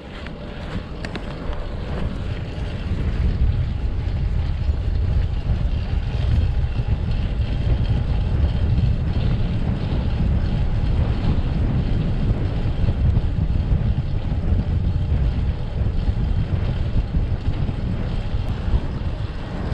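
Wind rushing over the microphone of a fixed-gear bicycle rider moving at speed. It builds over the first few seconds as the bike gets going, then holds steady, with a few light clicks near the start.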